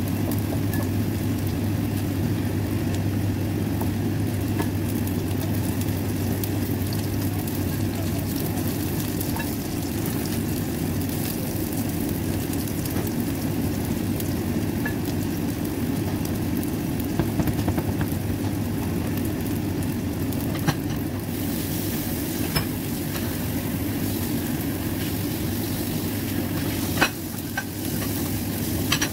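Whitebait patty batter frying in oil in a nonstick pan: a steady sizzle over a low hum, with a few sharp clicks in the second half.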